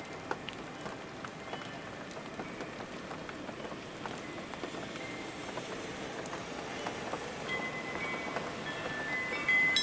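Steady rain with scattered individual drops ticking. Near the end, faint bright ringing chime tones come in over the rain.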